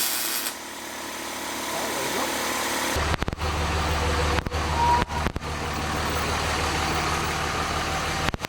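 A hiss that stops about half a second in. Then, from about three seconds in, an engine starts to be heard idling steadily.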